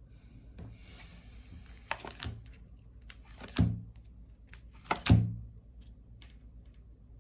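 Tarot cards rustling and sliding, then a few sharp knocks as cards or the deck are set down on the table, the two loudest about halfway through and a second and a half apart.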